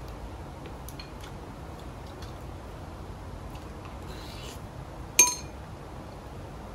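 Quiet eating sounds with a few faint ticks, then one sharp, ringing clink of a utensil against a bowl about five seconds in.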